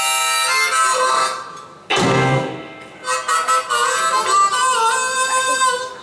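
Blues harmonica played alone into a vocal microphone: a long held note, then a sudden loud chord about two seconds in, followed by sustained notes with one wavering, bent note near the end.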